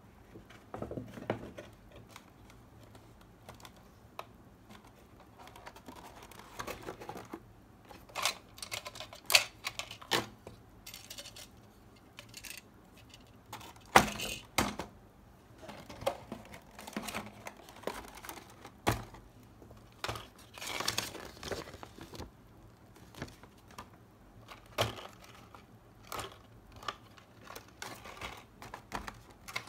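Handling sounds of a die-cast model kit being unpacked: scattered clicks and taps of plastic parts and cardboard set down on a table, with short rustles of packaging and a plastic parts bag. The loudest is a sharp knock about halfway through.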